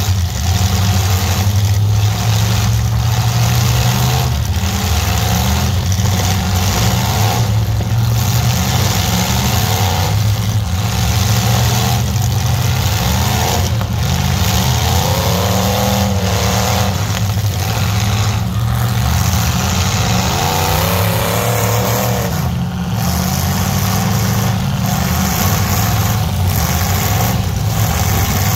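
Demolition derby pickup trucks' engines running loudly together, with engines revving up and down now and then, around the middle and again a little later.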